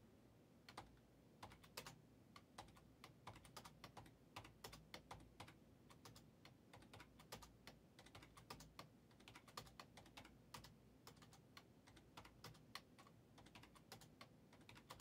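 Faint typing on a computer keyboard: irregular runs of quick key clicks.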